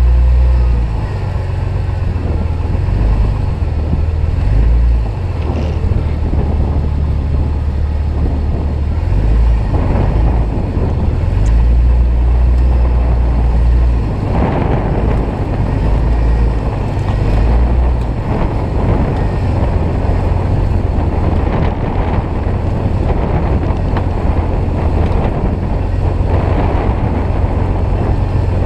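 Off-road vehicle crawling slowly over a rough trail, its engine rumbling low and uneven as the throttle changes, with knocks and scrapes from the body and brush now and then.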